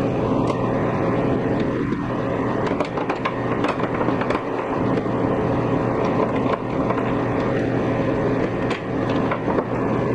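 Small clicks and scrapes of a screwdriver backing screws out of the plastic cover of a split air conditioner's indoor unit, over a steady hum and whir.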